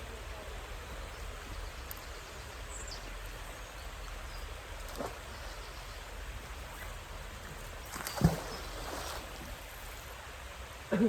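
Steady outdoor background noise by the water, with a faint knock about five seconds in and a single loud thump about eight seconds in.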